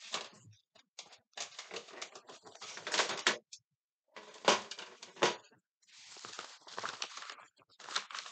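Sheets of printer paper being handled and leafed through: irregular rustling with several sharp clicks and taps.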